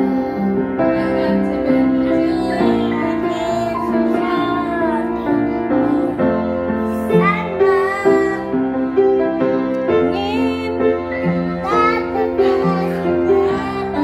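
A young girl singing along to a piano played with both hands: steady chords and melody notes under her voice.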